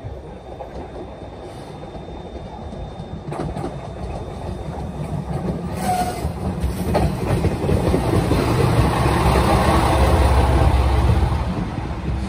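Moka Railway diesel railcar passing close by on the next track: its engine and wheels rumble, building up steadily and loudest a few seconds before the end, with some clickety-clack over the rail joints.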